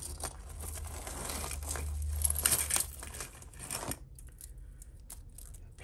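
A tangled heap of costume jewellery chains and beaded necklaces rustling and clinking as hands rummage through it and pull out a multi-strand beaded necklace. The rustle is loudest about two and a half seconds in and stops about four seconds in, leaving a few faint clicks.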